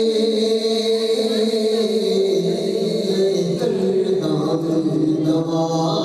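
Men's voices chanting a naat without instruments, holding long notes that glide slowly in pitch, with a group joining the refrain.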